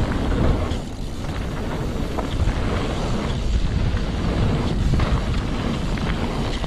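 Mountain bike riding fast down a dirt trail, heard from a rider-mounted action camera: wind buffeting the microphone and tyres rumbling over the ground, with a few sharp clicks and rattles from the bike along the way.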